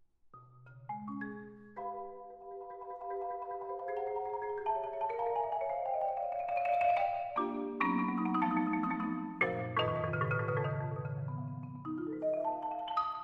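Concert marimba played with mallets: after a brief quiet, notes start shortly in, then layered chords and held notes build across the low and middle range and grow louder.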